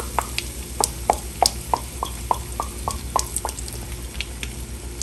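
Soy sauce and oil popping and crackling in a hot frying pan with the heat off: a quick run of sharp pops, about three a second, thinning out after about three and a half seconds, over a steady low hum.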